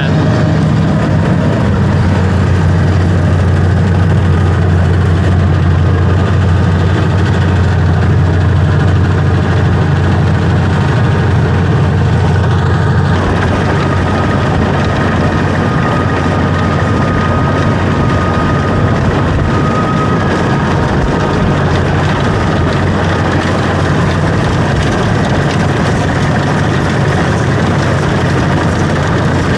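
A heavy engine running steadily at an even speed, with a faint thin whine in the middle.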